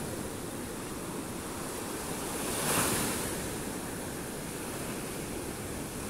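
Small surf waves breaking and washing up a sandy beach in a steady rush of foamy hiss, swelling briefly louder about halfway through.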